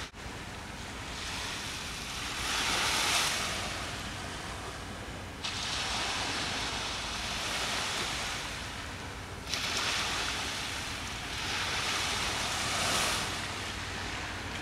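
Surf breaking and washing up on a beach, the hiss of the waves swelling and fading every few seconds.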